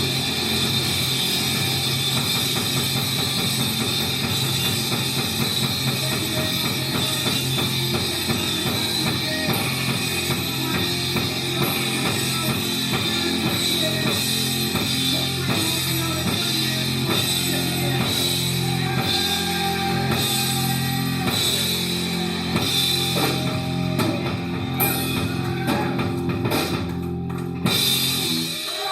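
Rock band playing, with drum kit and cymbals, guitar and a steady low bass line; the playing breaks off near the end.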